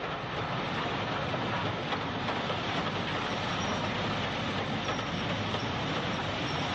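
A Stanier Black Five 4-6-0 steam locomotive hurrying past with a freight train of vans: a steady, dense rush of train running noise that builds a little at first and cuts off suddenly at the end.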